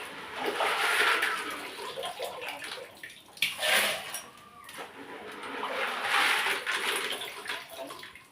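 Water splashing and pouring in uneven surges.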